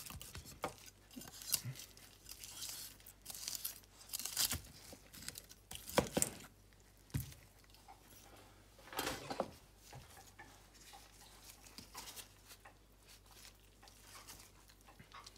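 A knife slicing through a crusted, rested tomahawk steak on a wooden chopping board: irregular cutting and scraping strokes with a few sharper knocks of the blade, the loudest about six seconds in.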